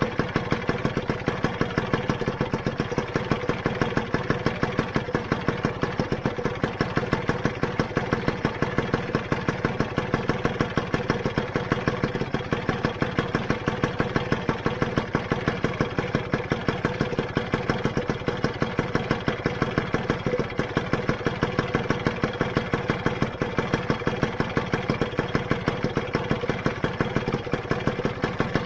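Rebuilt Lambretta GP two-stroke single-cylinder engine idling steadily, with an even, regular pulsing beat.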